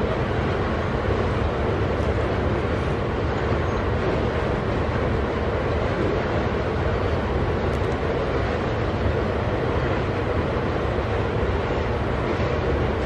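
Loaded iron-ore gondola wagons of a long freight train rolling past, their steel wheels making a steady, even rolling noise on the rails.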